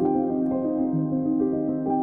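Calm instrumental background music: held keyboard-like notes that change every half second or so.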